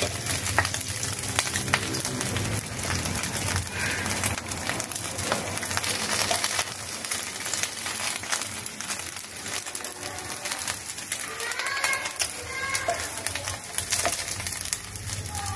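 Dried fish sizzling and crackling as it fries in a hot pan, a steady hiss full of small pops.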